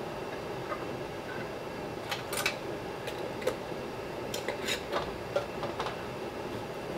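Light metal clinks and taps of a canning lid and screw band being set onto a hot glass jam jar, several of them between about two and six seconds in. Underneath runs the steady hiss of a boiling water-bath canner.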